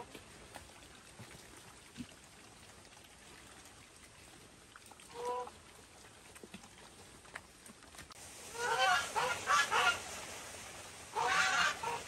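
Farm animals calling: one short pitched call about five seconds in, then two bouts of rapid, repeated calls in the last four seconds.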